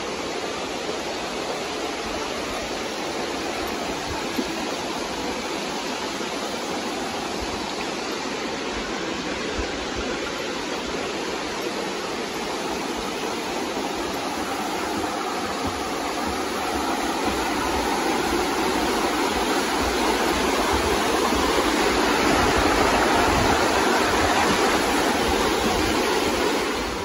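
Mountain stream rushing over rocks, a steady rush of water that grows louder about two-thirds of the way through.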